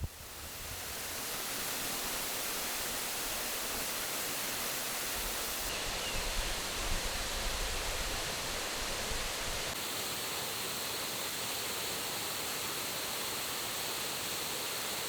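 Waterfall, a steady rush of falling water that fades in over the first second or so.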